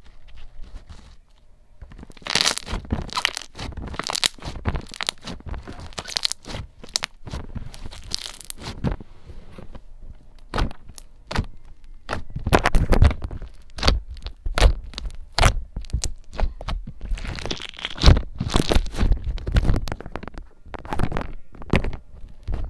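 Gold metallic clear-glue slime being squeezed and stretched by hand, giving loud, irregular wet pops and crackles that start about two seconds in.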